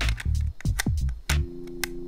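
Background electronic music: a drum beat of low thumps with sharp high ticks between them, and a held synth chord coming in about a second and a half in.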